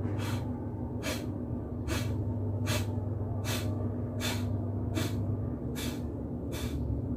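Kapalbhati pranayama strokes through the right nostril alone: sharp, forceful nasal exhalations, nine in a steady rhythm about one every 0.8 seconds.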